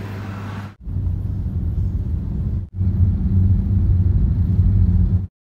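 Low, steady road rumble of a car driving, heard from inside the cabin. It stops suddenly near the end.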